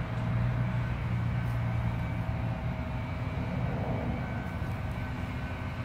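Steady low drone of a distant engine, its strongest low hum easing off about two and a half seconds in.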